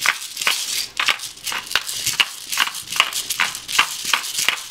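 Pepper mill grinding black peppercorns: a regular run of crunchy clicks, about two to three a second.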